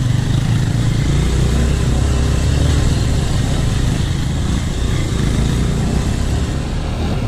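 Single-cylinder trail motorcycle engine running steadily while riding, with an even rushing noise over it.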